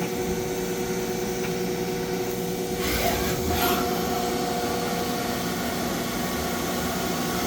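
Haas ST-10 CNC lathe running under power: a steady machine hum with several fixed whining tones. About three seconds in there is a short hiss, and a higher whine then joins and holds.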